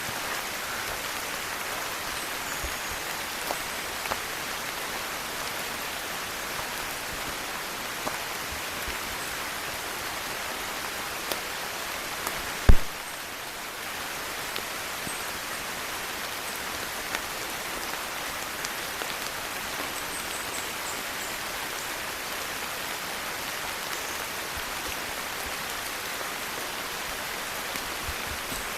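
Steady rainfall, an even hiss without a break, with one sharp knock about halfway through and a few faint high chirps later on.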